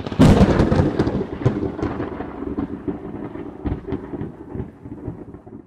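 Logo-intro sound effect like a thunderclap: a sudden boom just after the start, then a crackling rumble with scattered sharp cracks that slowly dies away over about five seconds.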